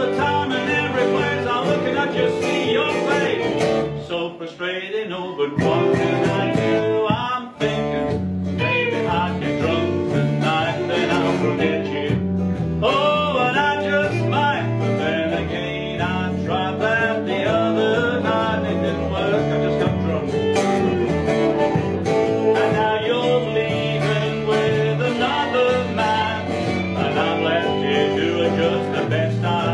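Live band music: fiddle, acoustic guitar and electric bass guitar playing together, with a man singing the lead vocal.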